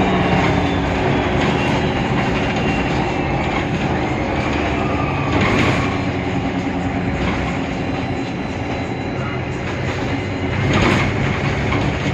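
Interior noise of a Mercedes-Benz Citaro O530 Ü city bus under way: its OM 906 hLA diesel engine and Voith DIWA automatic gearbox running steadily, with the body rattling and a couple of brief clatters, about five seconds in and near the end.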